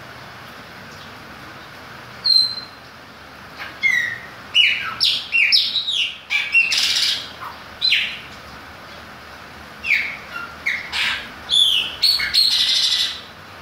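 Chopi blackbird singing: bursts of short whistled notes, many sliding down in pitch, in phrases that come in about two seconds in, run thick through the middle and return near the end.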